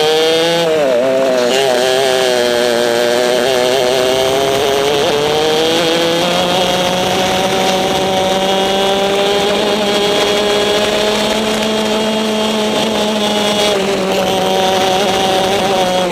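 Racing kart's two-stroke engine heard from the seat. The revs dip and recover through a corner at the start, then climb steadily down a straight and hold at a high pitch. A few seconds from the end they drop sharply as the driver lifts off for the next corner, then pick up again.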